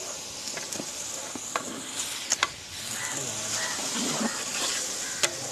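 Chicken pieces being stirred into simmering masala in a large aluminium pot with a long metal ladle: a steady sizzling hiss with a few sharp clinks of the ladle against the pot.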